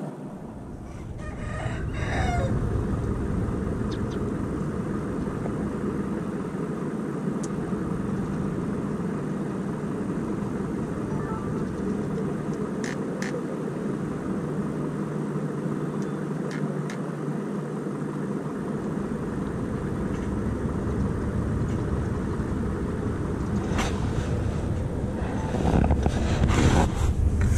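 A rooster crowing once, about two seconds in, over a steady low background rumble, with a few light clicks and handling knocks later on.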